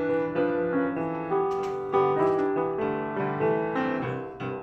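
Intro piano music: a melody of struck notes that ring and fade over lower held notes.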